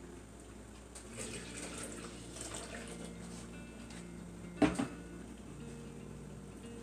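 Water being poured from a measuring cup into a blender jar, a faint splashing trickle. A single sharp knock comes about four and a half seconds in.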